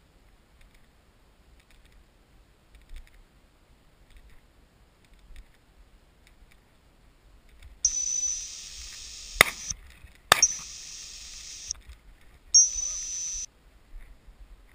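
Two shotgun shots about a second apart, set among three long, high whistle blasts: the first blast starts just before the shots and the last is short, near the end.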